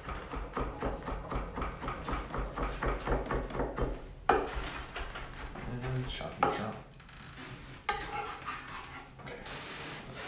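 Chef's knife mincing garlic on a wooden cutting board: a fast run of chopping strokes, then a few single louder knocks of the knife on the board.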